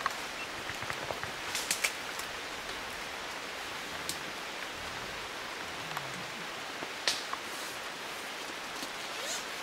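Steady rain falling on dense rainforest foliage, an even hiss with a few sharp ticks.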